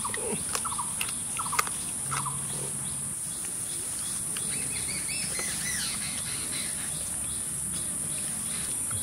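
Steady high-pitched drone of insects in the grass, with a few short bird chirps midway. A few sharp clicks of eating come in the first two seconds as the whole fried chicken is bitten and torn by hand.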